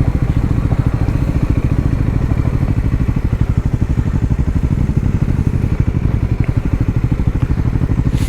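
Triumph Scrambler 400X's single-cylinder engine running at steady, low revs, its firing pulses even throughout.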